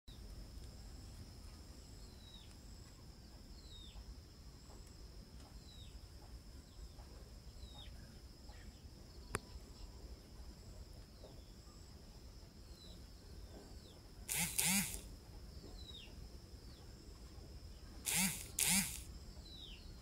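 Faint outdoor ambience: a steady high insect drone, with short high descending bird peeps every second or two. Three short, loud rasping bursts break in, once about three-quarters of the way through and twice in quick succession near the end.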